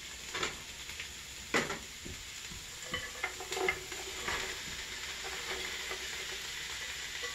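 Sliced mushrooms and carrots sizzling in hot oil as they are tipped into a stainless steel pot, with a few sharp knocks as the bowl and pieces hit the pot in the first seconds. The sizzle fills out and steadies after about four seconds, once the carrots are in.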